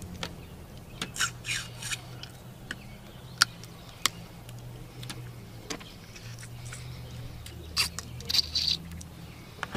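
Boiled crawfish being cracked, peeled and eaten by hand: scattered sharp clicks and crackles of shell, with a few short bursts of eating and sucking noise about a second in and again near the end, over a steady low hum.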